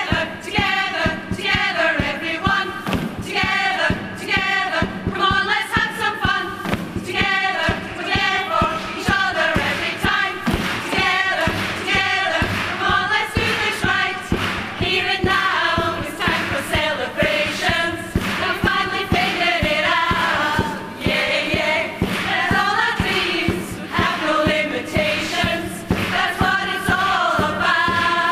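A women's choir singing an upbeat song together over a steady thumping beat.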